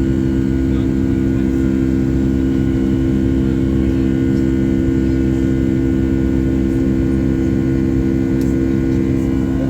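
Jet airliner's engines droning steadily, heard inside the passenger cabin: an even rumble with a few constant humming tones that don't change.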